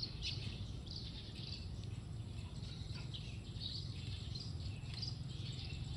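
Small birds chirping on and off in short calls over a steady low rumble of open-air background noise.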